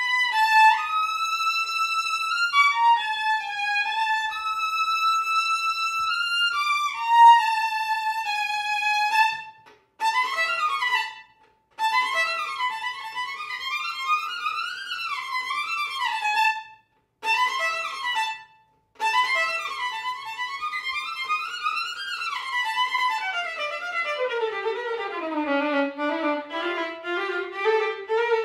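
Solo violin played with the bow, unaccompanied: long held notes for the first several seconds, then quicker runs that climb and fall, broken by a few short pauses. Near the end a run sinks to the instrument's low notes and climbs back up.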